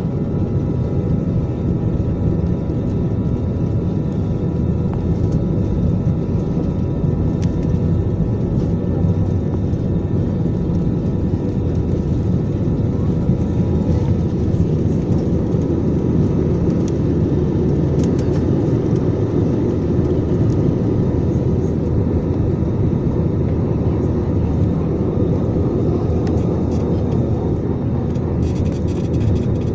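Jet airliner's engines at takeoff power heard from inside the cabin: a steady, loud roar with faint steady tones through the takeoff run and climb.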